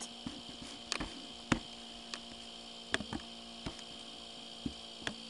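Computer mouse button clicking several times at irregular intervals over a steady electrical hum.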